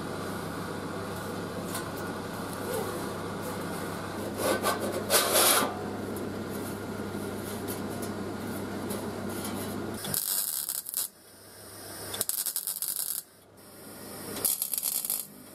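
MIG welder tacking the steel tail fins: from about ten seconds in, three short bursts of welding crackle, each about a second long and cut off sharply. Before that, a steady electrical hum with scraping noise over it and one louder burst about five seconds in.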